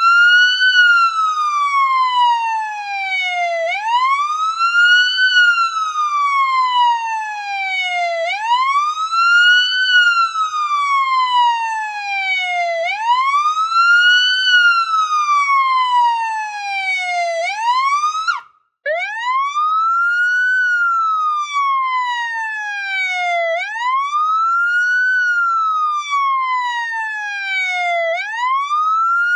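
Police siren wailing, each cycle climbing quickly in pitch and falling slowly, about every four and a half seconds. It drops out for a split second about eighteen seconds in, then starts again.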